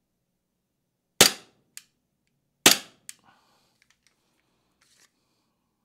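Two shots from a VFC Glock 19X gas-blowback airsoft pistol, about a second and a half apart, each followed by a faint click.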